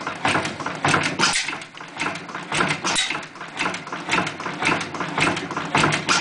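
Invincible hot bulb stationary oil engine, thought to be built by H. Widdop, running steadily. Its running makes a rhythmic clatter of sharp clicks and knocks.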